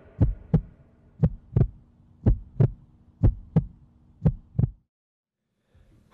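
Heartbeat sound effect: five double thumps, about one a second, over a faint low hum, cutting off abruptly about five seconds in.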